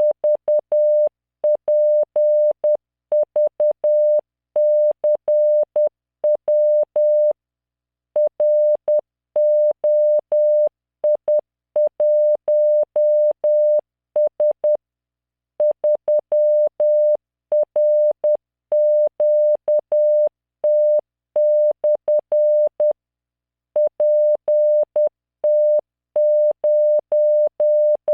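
Morse code from LearningMorse CW training software: a single 600 Hz computer-generated tone keyed in dots and dashes at 10 words per minute, sending random five-character groups of letters and numbers. Longer pauses separate the groups, three times in the stretch.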